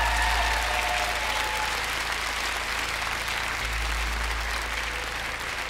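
Studio audience applauding, easing off slightly toward the end.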